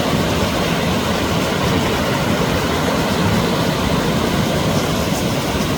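Mountain stream rushing over rocks in a steady, loud flow.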